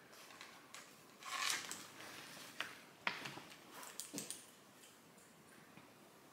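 Handling noise as a cross-stitch project is packed away: a brief rustle about a second in, then a few light clicks and taps.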